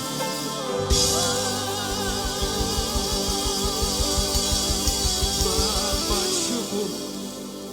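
Live gospel music: a singer's voice with vibrato over sustained instrumental backing, with a steady, fast drum beat coming in about a second in and dropping out near the end.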